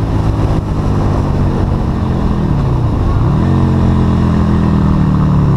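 Yamaha Virago 250's small air-cooled V-twin pulling hard under full throttle during a zero-to-sixty run. About two and a half seconds in the engine note drops, then climbs sharply back and holds high and steady.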